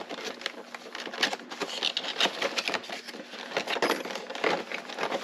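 Small metal lock hardware clicking and clinking as it is handled and set down, a series of irregular sharp clicks.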